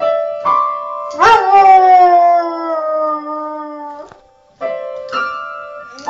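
A beagle pawing an upright piano and howling along: several clashing chords struck with its front paws, with a long howl that slides down in pitch starting about a second in. There is a brief pause a little past the middle before more keys are struck.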